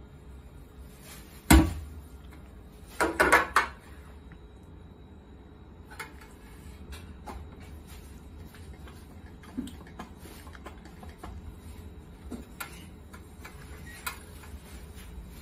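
Dishes being hand-washed at a stainless steel sink: plates knocking and clinking against the sink and counter, with a sharp knock about a second and a half in, a short clatter a couple of seconds later, then scattered light clicks.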